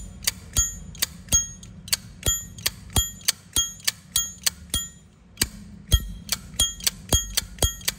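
Zippo lighter lid flicked open and snapped shut over and over, about two to three sharp clicks a second, each with a short ringing metallic tone. This is the bell-like 'chuông' tone that collectors prize in a Zippo's lid action.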